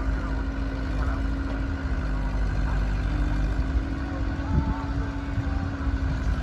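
Heavy diesel engine running steadily at an even speed, with a constant low hum.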